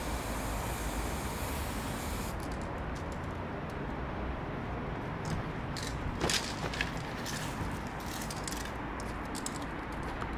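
Aerosol spray-paint can hissing steadily, cutting off abruptly about two seconds in. Scattered light clicks and rustles follow over a low steady rumble.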